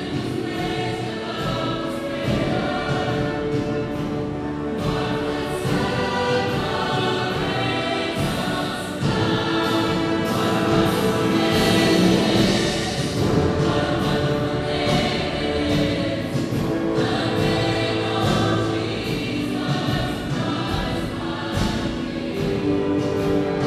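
A choir singing with musical accompaniment, the sound continuous and full throughout.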